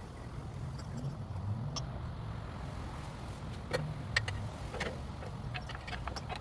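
Scattered light metallic clicks and taps of tools and wheel parts being handled during reassembly of a motorcycle rear wheel and axle, over a steady low rumble.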